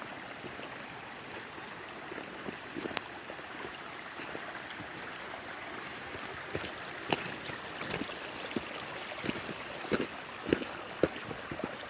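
A mountain stream flowing in a steady rush, with scattered sharp clicks and knocks, more of them in the second half.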